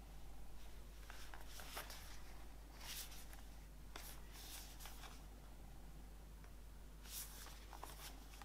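Album box-set packaging rubbing and sliding under the hands, in several short, faint bursts with a lull in the middle.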